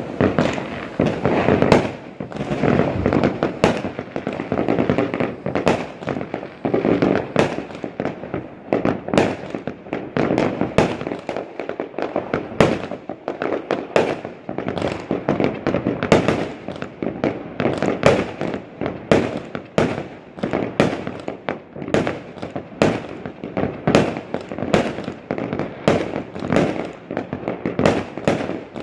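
Many fireworks going off at once: a dense, unbroken barrage of bangs and crackling from aerial shells and firecrackers, several a second, the overlapping reports merging into a continuous rumble.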